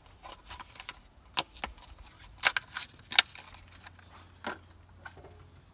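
Packaging for small replacement parts being opened by hand: a string of sharp crinkles and clicks, the loudest a little past three seconds in.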